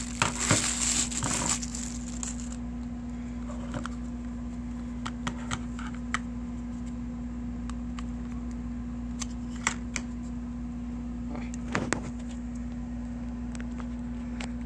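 Knife packaging being handled: a couple of seconds of crinkling at the start, then scattered small clicks and taps over a steady hum.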